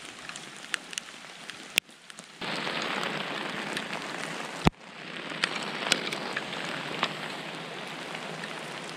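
Steady rain falling on a lake and the shore around it, with scattered close drips. The rain gets abruptly louder about two seconds in, dips sharply for a moment near five seconds, then carries on.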